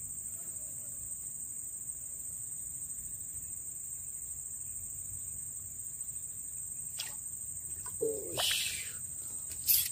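Steady high-pitched drone of insects. Near the end come a few brief louder sounds, the sharpest just before the end.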